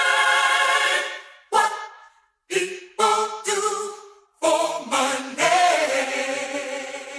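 Unaccompanied voices singing together: a held chord that fades out about a second in, then several short sung phrases with brief silences between them, ending in a long chord that dies away.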